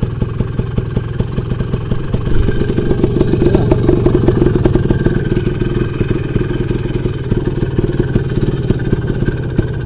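Off-road motorcycle engine running under throttle in a muddy, water-filled rut. The revs rise about two and a half seconds in, hold for a couple of seconds, then ease back.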